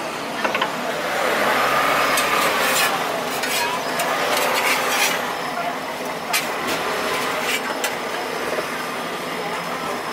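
Cooking at a mian jian bing (Taiwanese thick pancake) stall: a metal spatula scraping and knocking against the round pancake pan and a spoon stirring batter, with a few sharp clicks spread through. A steady din of street noise runs underneath and swells for a couple of seconds about a second in.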